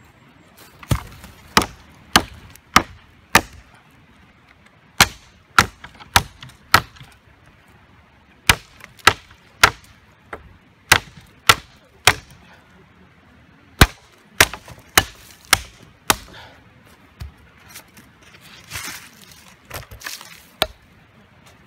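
Tent or tarp pegs being hammered into the ground: sharp strikes in runs of three to five, a little under two a second, with short pauses between runs. A few softer knocks and a brief scuffing sound come near the end.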